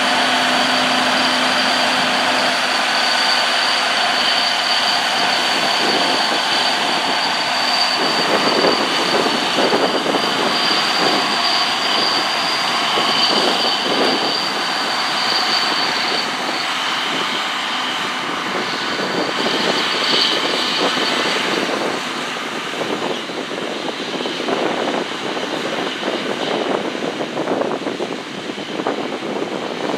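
John Deere 9360R four-wheel-drive tractor's diesel engine running under way as it pulls a grain cart, with a steady high whine that fades out about halfway through. The sound grows fainter in the last few seconds as the tractor moves off.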